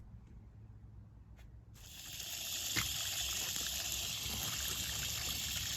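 Steady rush of running water that starts suddenly about two seconds in, water being run over a grimy antique brass light fixture to wash off dust, rust and nicotine tar. Before it, a faint low hum and a few light clicks.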